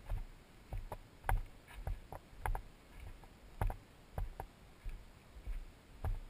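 A hiker's footsteps on a dirt trail: a steady walking rhythm of dull thumps, roughly two a second, each with a light crunch or click on top.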